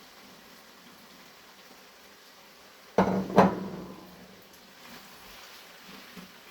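Two sharp metal knocks against a cooking pot, a fraction of a second apart, the second louder, each ringing briefly, as when a spoon is tapped on the pan's rim while adding ingredients.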